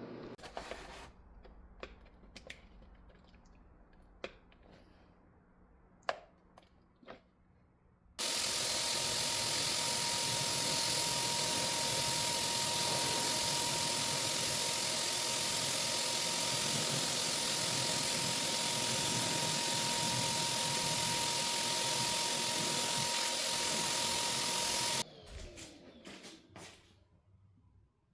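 An electric workshop tool runs steadily for about seventeen seconds with a steady whine over a loud hiss, starting and stopping abruptly. A few light clicks and knocks come before it and just after it.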